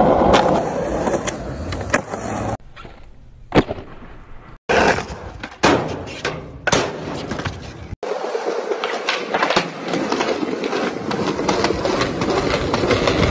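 Skateboard wheels rolling on hard ground, with sharp cracks from the board's tail popping and the board landing, heard across several short clips. In one clip the board rolls down a steel playground slide.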